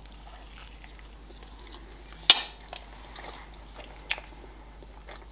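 Soft chewing of a mouthful of cream-filled pancake cake. A sharp click comes about two seconds in and a lighter one about four seconds in.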